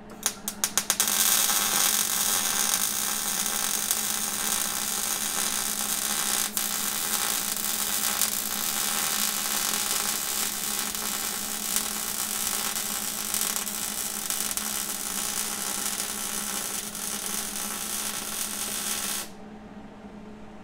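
Electric arc welding of a steel post to a steel plate. A few short arc strikes in the first second, then a steady sizzling hiss that cuts off suddenly about a second before the end.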